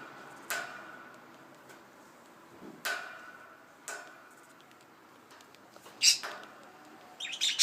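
A budgie's beak plucking at the wire bars of its cage: a handful of sharp metallic clicks, each with a brief ring. The loudest pair comes about six seconds in. Just before the end a quick run of squawks begins.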